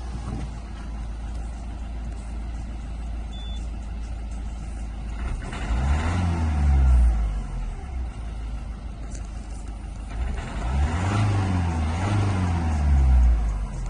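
Peugeot 308's 1.6 HDi (9HD) four-cylinder turbodiesel idling, then revved twice, about six seconds in and again about ten seconds in, each time rising in pitch and falling back to idle.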